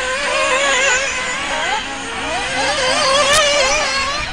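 Several nitro-engined radio-controlled buggies racing, their small high-revving engines whining and constantly rising and falling in pitch as they accelerate and lift off around the track.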